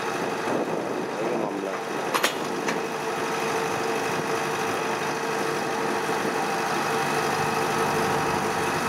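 Kubota DC93 combine harvester's diesel engine idling steadily, with a sharp clack about two seconds in and a fainter one just after.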